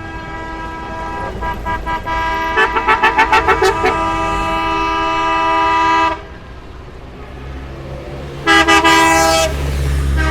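Vehicle horn honking: a run of quick toots that runs into a long held blast, then after a short pause another loud blast near the end, over low traffic rumble.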